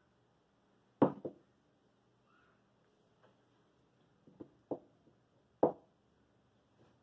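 Parts of a cut-open car oil filter (steel canister, end plate, filter element) being handled and set down on a metal workbench: a handful of separate sharp metal knocks and clinks, the loudest about a second in and again just before the end.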